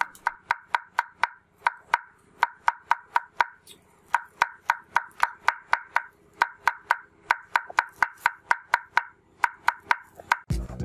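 Knife chopping fresh green herbs on a cutting block, a quick even rhythm of about four chops a second with a short pause about four seconds in. Music comes in near the end.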